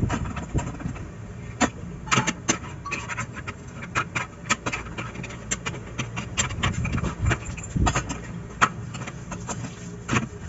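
Tableware clinking and knocking at a meal: irregular light clicks and taps, as of dishes, utensils or shells being handled, over a low steady hum.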